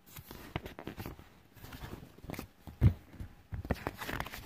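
Pages of a paperback picture book being turned by hand: irregular paper rustling and handling clicks, with a dull thump about three seconds in.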